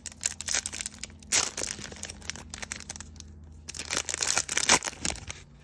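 A Topps Chrome Sapphire Edition foil card pack being torn open and crinkled by hand: scattered crackling, with louder bursts of crinkling about a second and a half in and again near the end.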